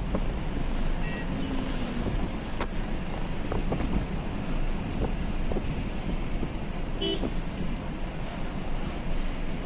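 Steady road and engine noise of a Maruti Suzuki Swift driving, with short vehicle-horn toots about a second in and again around seven seconds in.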